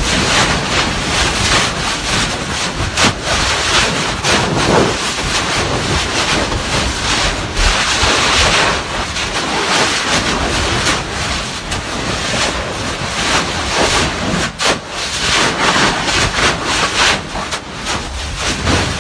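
Kilauea eruptive fissure spattering lava: a loud, steady rushing noise with a few sharper bursts.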